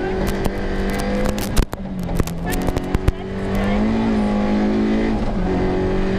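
Citroën C2 rally car's engine running hard, heard from inside the cabin, with a clatter of sharp knocks in the first three seconds. The engine sound drops briefly about a second and a half in, the revs climb around four seconds, and they drop again just after five seconds, as at a gear change.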